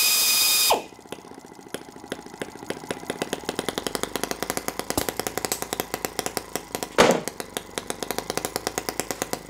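M12 miniature single-cylinder gasoline engine starting and running on gasoline. A brief loud whirring hiss at the start winds down, then the engine fires in rapid regular pops that grow steadier, with one louder pop about seven seconds in.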